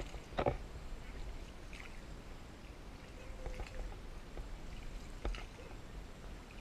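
Small wooden rowboat being paddled: faint water lapping and paddle strokes, with two sharp knocks, about half a second and five seconds in, over a low rumble.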